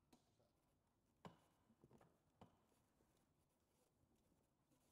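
Near silence: a few faint clicks and knocks as a hand-turned lottery drum full of paper tickets is rotated.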